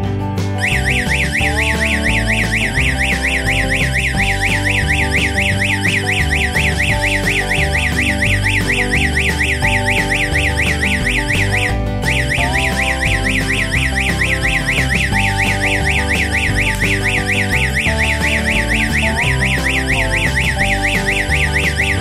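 Electronic alarm siren sounding a fast rising-and-falling warble, set off by a panic button on a security alarm panel. It breaks off briefly about halfway through and starts again. Background music plays underneath.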